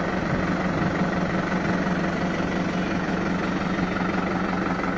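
Farm tractor's diesel engine running steadily at low revs, a constant hum with no change in pitch.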